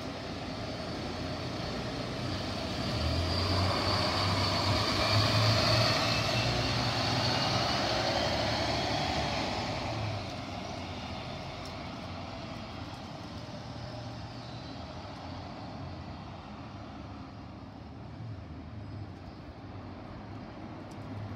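A bus pulls away close by. Its engine hum and a rising whine build for several seconds, then drop off about ten seconds in as it leaves. Steady traffic noise follows while another bus crosses further off.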